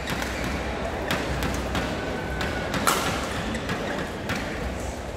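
Badminton rally: rackets striking the shuttlecock in a quick run of sharp clicks, the loudest about three seconds in, over a steady hall background.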